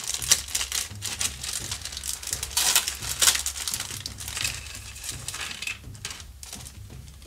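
Clear plastic packaging crinkling and rustling as it is handled and pulled open around a plastic miniature sprue, in a run of quick rustles that is loudest about three seconds in.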